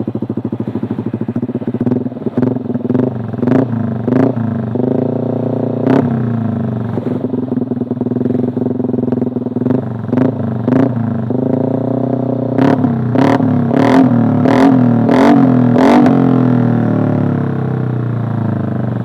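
Yamaha Aerox 155 scooter's single-cylinder engine revved in short throttle blips through an Eternal aftermarket racing exhaust, the pitch rising and falling with each blip. Sharp cracks come between blips, and a quick run of them comes near the end as the revs are held higher.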